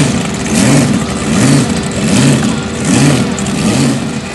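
Race car engine running loud, its pitch surging and falling back in an even rhythm about every three-quarters of a second.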